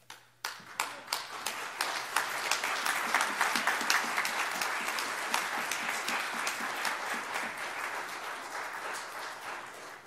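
A congregation applauding. A few scattered claps swell within about two seconds into full, steady applause that thins slightly near the end.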